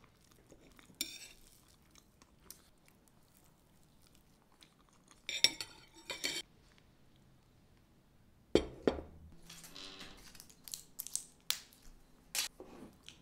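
Stainless knife and fork clinking and scraping on a ceramic plate, with two loud clusters of clinks about five and a half seconds in as the cutlery is laid down on the empty plate. Later there is a dull thump, then a few light knocks.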